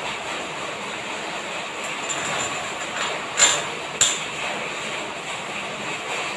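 Small lamp-wick making machine running with a steady whirring noise. Two sharp clicks about half a second apart near the middle.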